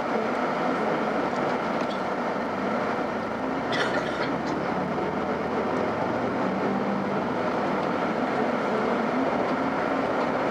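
Steady engine and road noise heard from inside a moving road vehicle, with a brief rattle about four seconds in.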